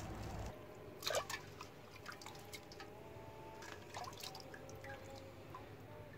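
Water dripping and splashing in a small aluminium pot as pieces of fish are rinsed by hand, with one louder splash about a second in and then small drips and splashes.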